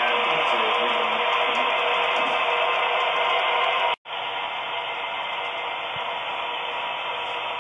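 HO scale model train running along the layout: a steady whir and rumble of its many metal wheels rolling on the rails. It breaks off abruptly about four seconds in and resumes a little quieter.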